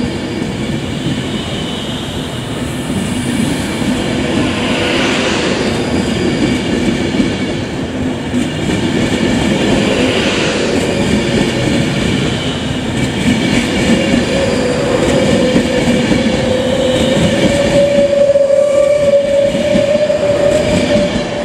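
Class 390 Pendolino electric train pulling away and accelerating past, its wheels rolling on the rails. A whine gets louder and rises slightly in pitch over the last several seconds as the train picks up speed.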